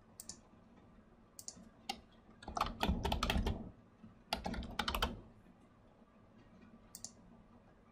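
Typing on a computer keyboard: two quick runs of keystrokes, about two and a half and four and a half seconds in, with a few single clicks before and after.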